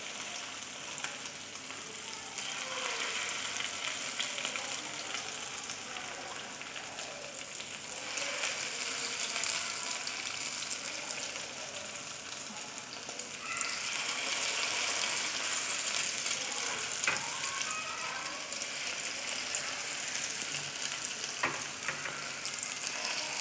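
Chicken lollipops sizzling as they fry in hot oil in a pan, a steady hiss that swells louder twice, with a couple of sharp clicks near the end.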